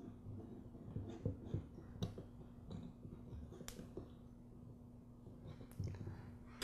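Faint scattered clicks and light taps of hands handling wire ends and a small electric motor as the wires are pushed through the motor's terminal eyelets, over a faint steady hum.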